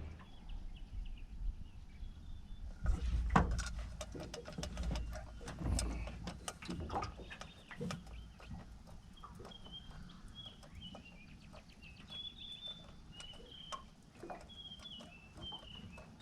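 Small birds chirping in short, high, repeated calls, mostly in the second half. Earlier there are scattered clicks, knocks and low bumps of handling noise, loudest a few seconds in.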